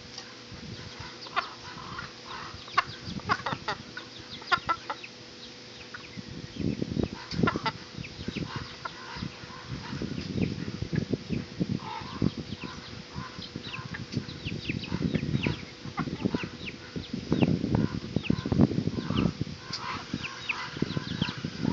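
Farmyard fowl calling: a steady stream of short clucks and chirps from a mixed flock of chickens, guinea fowl and turkeys. Bursts of low rumbling come in from about six seconds on.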